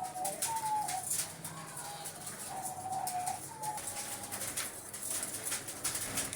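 Diamond doves cooing: a run of short, soft, steady notes, some bending up or down at the end, over the first four seconds, with scattered clicks and rustles from the aviary.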